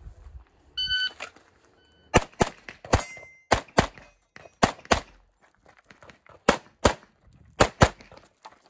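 An electronic shot timer beeps once, about a second in, and then a CZ Shadow 2 pistol fires about eleven shots, mostly in fast pairs, in an IPSC course of fire. A short ringing tone follows one of the early shots.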